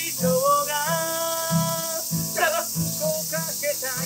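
A man singing a slow Japanese song to his own Gibson acoustic guitar, strummed in a slow, steady rhythm. He holds one long note about a second in.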